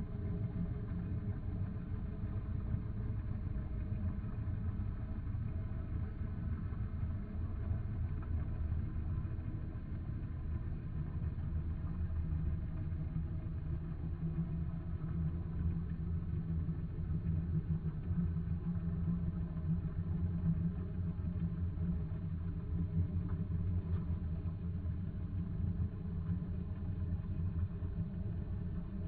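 Steady low rumble of engine noise heard underwater, the kind of boat-motor noise pollution that fills the sea off the coast. It holds even throughout, with faint steady hum-like tones over the drone.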